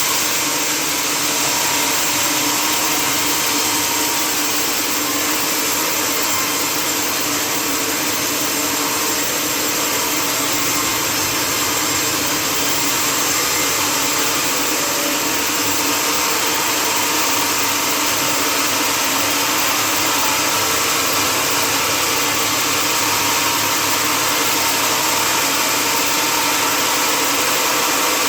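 Sawmill machinery running steadily: a loud, continuous mechanical noise with a constant hum and a high hiss that neither starts, stops nor changes pace.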